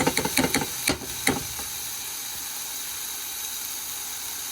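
Chopped onion, garlic and ginger sizzling in hot coconut oil, with a stirring utensil knocking and scraping against the pot several times in the first second and a half, then a steady sizzle.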